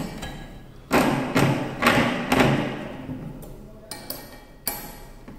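Metal knocks and clunks as a hex key is worked in the blade bolt of a switched-off Makita 40V cordless circular saw: about four sharp knocks with a short ring in the first half, then a few lighter ones.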